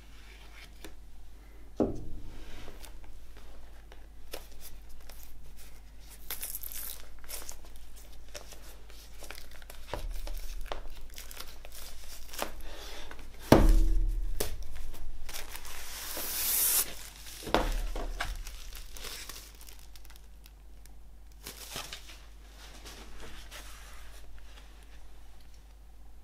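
Plastic shrink-wrap on a vinyl LP sleeve being slit with a knife and pulled off, crinkling and tearing in irregular bursts. A few dull thumps come from the record being handled, the loudest about halfway through.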